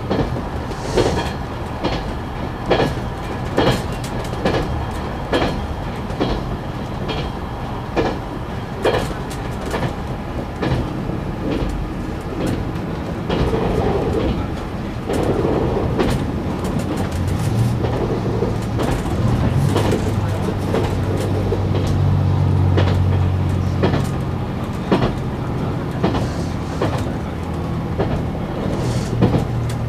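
KiHa 187 diesel railcar running along the track, its wheels clicking over rail joints about once a second. A low drone from its diesel engine grows louder a little past halfway and holds steady.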